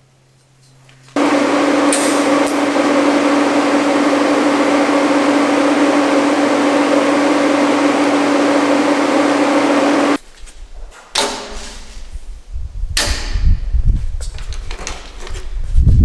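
MIG welding arc on steel square tubing: a steady crackling hiss with a steady buzz for about nine seconds that cuts off suddenly. Afterwards comes a series of knocks and clunks as steel is handled.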